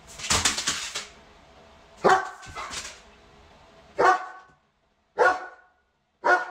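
Red Doberman barking in alarm, as if at an intruder: a series of deep single barks about a second apart, after a short noisy burst at the start.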